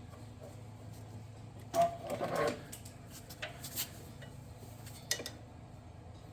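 Hands working a throttle cable through a riding mower's frame: a scraping rattle of cable and metal parts about two seconds in, then a few sharp clicks, over a low steady hum.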